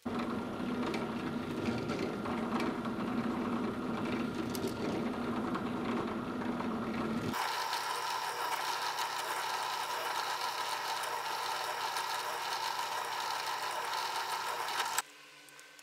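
Benchtop drill press running steadily as a thin bit drills holes through thick leather. The sound shifts abruptly about halfway through, losing its low rumble for a higher steady tone, and stops shortly before the end.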